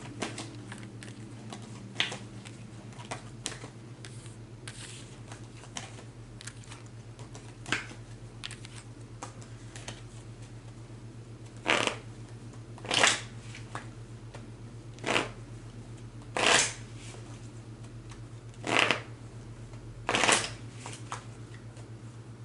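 A deck of tarot cards being handled and shuffled: light scattered clicks and flicks of card, then six short rustling bursts of shuffling a second or two apart in the second half, over a steady low hum.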